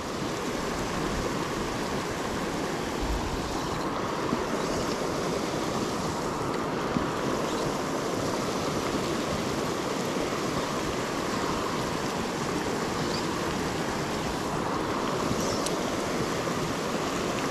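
A mountain river rushing steadily, an even wash of flowing water with no break.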